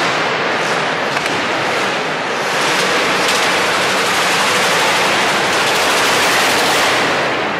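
Drift car sliding sideways through a corner with its rear tyres spinning and smoking, heard as a loud, steady wash of engine and tyre noise that eases slightly near the end.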